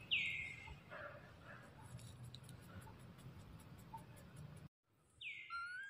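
Two short, high-pitched animal calls, each sliding quickly downward in pitch, one right at the start and a second near the end, over a faint outdoor background.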